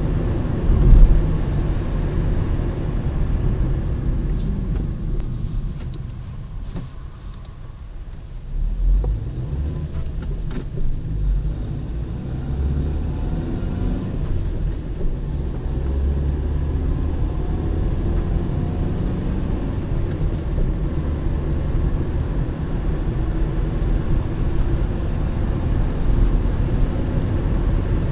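Kia Rio QB running and being driven, with a dull knock heard at gear changes, three times spread through the stretch, the fault the owner is recording.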